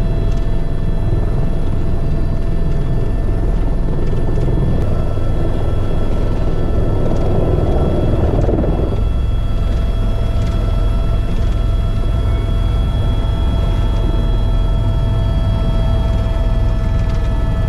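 Tour helicopter running steadily: a heavy low rotor rumble with a constant turbine whine of several steady tones over it. A brief swell of rushing noise rises and fades about eight seconds in.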